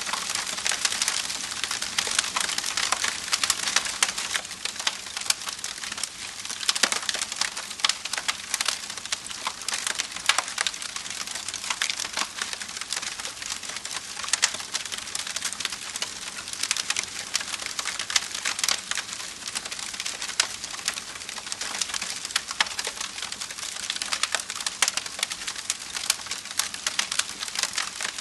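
Wood fire crackling steadily, with many small sharp pops and snaps over a soft hiss.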